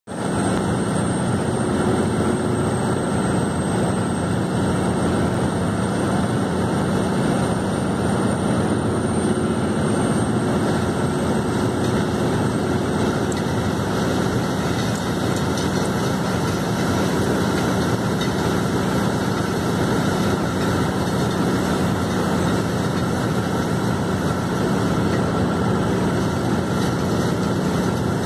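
Casagrande C6 drilling rig running a down-the-hole air hammer: a steady, dense hammering mixed with the rush of compressed air blowing cuttings and dust out of the hole, over the rig's engine.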